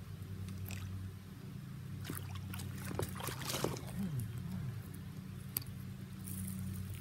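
Water splashing at a pond's surface, with a cluster of sharp splashes about two to four seconds in, as a bass strikes at a topwater frog lure and misses it. A steady low hum runs underneath.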